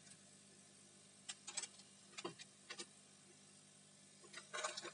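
Faint, scattered clicks and light taps of a laptop motherboard being handled and set down into its plastic bottom case, a few in the middle and a small cluster near the end, over a low steady hum.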